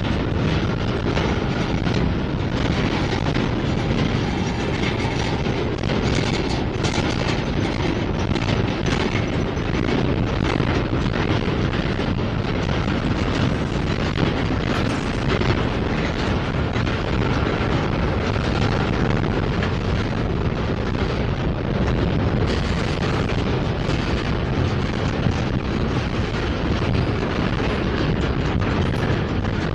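Freight train's double-stack well cars rolling past at close range: a steady, even noise of steel wheels running on rail.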